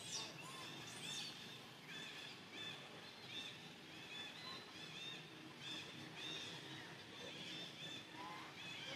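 Small animals chirping: many short, high-pitched chirps, several a second, over a faint steady background hiss.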